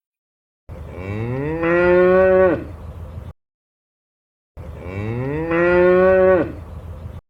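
A cow mooing twice, the same long moo heard two times: each one rises in pitch, holds, then drops away at the end.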